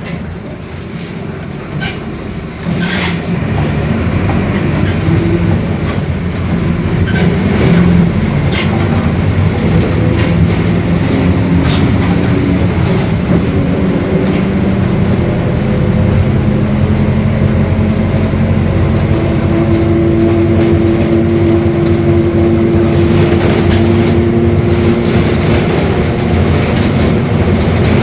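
Mercedes-Benz OF-1721 BlueTec 5 bus under way: the diesel engine and drivetrain drone while the pitch climbs, with a differential growl that holds one steady tone for several seconds past the middle. Sharp body rattles and clicks come through, mostly in the first half.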